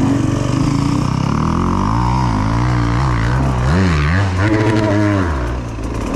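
Enduro motorcycle engine running on the trail. It holds a fairly steady throttle at first, then is blipped up and down repeatedly in the second half, its pitch rising and falling with each twist of the throttle.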